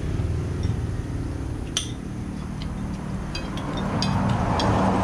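Steady low rumble of road traffic that swells near the end as a vehicle goes by. Over it come a sharp clink of dishes and cutlery about two seconds in and a few lighter clinks later.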